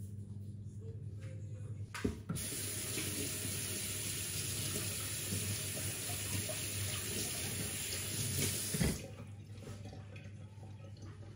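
Water tap running: it comes on with a click about two seconds in, runs steadily, and is shut off with a knock about nine seconds in, over a steady low hum.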